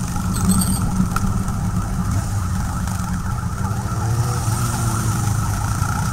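Motorcycle engines running steadily as a column of bikes rides along a street, heard from one of the motorcycles in the group.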